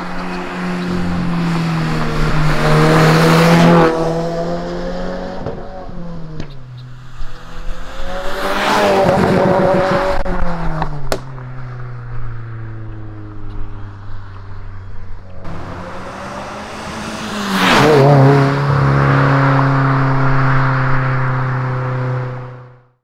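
Subaru WRX's turbocharged FA24 flat-four through a cat-back exhaust with no resonators or mufflers, driving past in three fly-bys. Each time the engine note swells to a loud peak as the car goes by, then falls in pitch.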